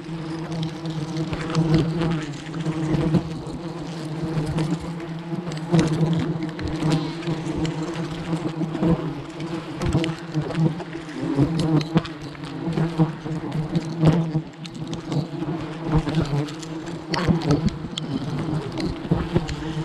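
A swarm of giant honeybees (ong khoái) buzzing around an opened wild nest: a steady, low drone, with many short clicks and knocks scattered through it.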